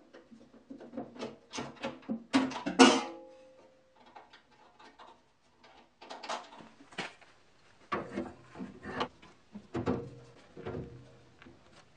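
Metal parts of a table saw being handled and fitted: scattered clanks, knocks and clicks. The loudest clank comes about three seconds in and rings briefly.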